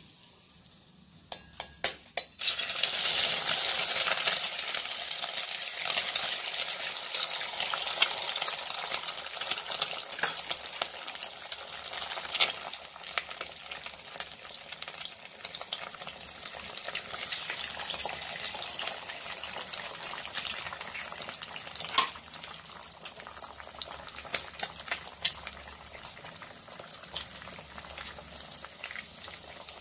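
Eggs dropped into hot oil in a kadai, frying with a continuous crackling sizzle and spatter. A few sharp clicks come first, and the sizzle starts abruptly about two seconds in. It flares up again as more eggs go in.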